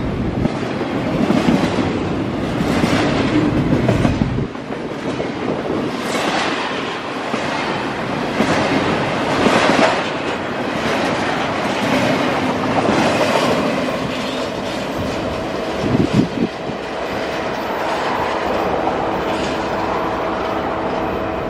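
CSX double-stack intermodal freight train's container-laden well cars rolling past close by: a steady loud rumble and rattle, with wheels clicking over rail joints. The deep low rumble drops off about four and a half seconds in.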